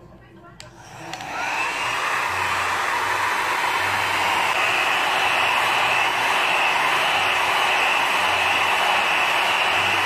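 Babyliss Pro Nano Titanium mini travel hair dryer switched on with a click about half a second in, its motor rising to speed over the next second, then blowing steadily.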